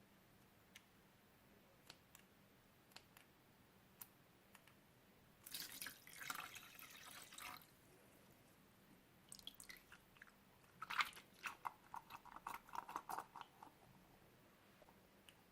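Slime being handled, faint. There are scattered soft clicks, then a short wet rustling patch about six seconds in, then a run of quick sticky pops and clicks, several a second, in the second half.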